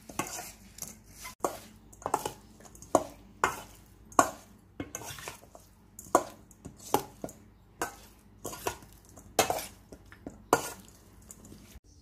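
Metal spoon tossing a moist grilled-pork and cucumber salad in a stainless steel bowl: repeated clinks and scrapes of spoon on steel, about one every 0.7 s, with soft wet rustling of the ingredients between them. The clinking stops near the end.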